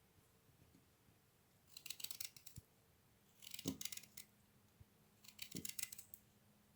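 Knife finely cutting fresh ginger root: three short, faint runs of quick, crisp cuts.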